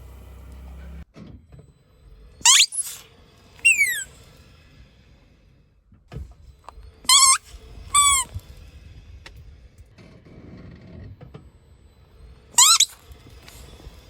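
Rubber squeaky toy squeaking five times as it is squeezed: short, loud, high-pitched squeaks, some rising and some falling in pitch.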